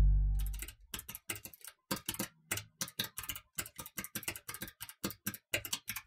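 A deep musical boom dies away in the first half second, followed by quick, irregular clicks of typing on a keyboard, a few keystrokes a second.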